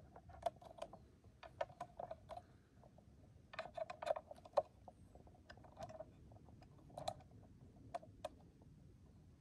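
Scattered light clicks and scratchy ticks at an irregular pace, bunched in short clusters with gaps between them.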